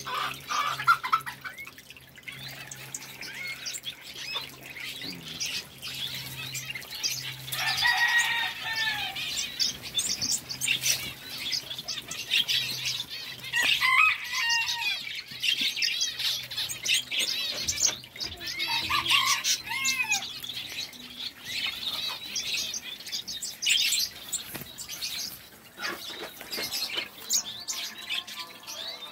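Many small aviary finches and canaries chirping and calling together in dense, overlapping high chirps. A few louder, lower, curving calls stand out about 8, 14 and 20 seconds in. A low steady hum underneath stops about two-thirds of the way through.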